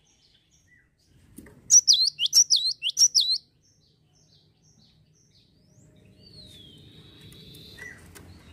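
Cinereous tit singing a quick run of loud, high notes, each one sweeping downward, repeated about five times. A fainter low rustle follows near the end.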